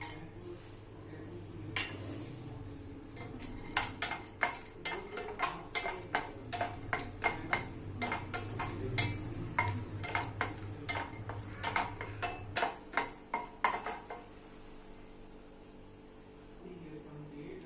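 A spoon knocking and clinking against a cooking vessel while a mixture is stirred, in an irregular run of sharp strikes about two a second that stops a few seconds before the end.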